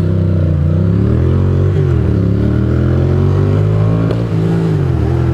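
Ducati Monster's V-twin engine running under the rider, revs rising and falling through throttle changes and gear shifts, with a sharp pop about four seconds in that the rider calls a backfire.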